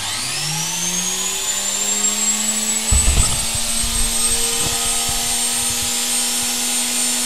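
A 585-watt electric drive motor switched on and spinning up, turning a washing-machine motor rebuilt as a generator: a whine that rises in pitch over the first couple of seconds, then runs steadily at speed. A few low knocks about three seconds in.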